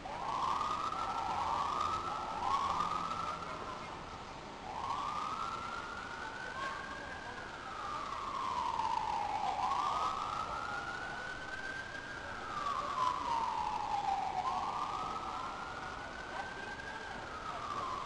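Emergency vehicle siren: three short quick rising yelps, then a slow wail that rises and falls in pitch, about three long sweeps.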